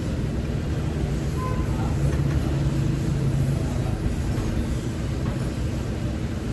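A vehicle engine running steadily, a low rumble with a hum that swells for a second or so in the middle.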